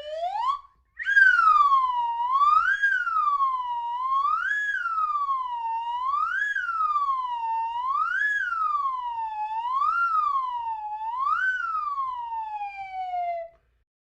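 Siren sound effect wailing: a clean tone that rises and falls about every two seconds, seven times, then slides down and stops.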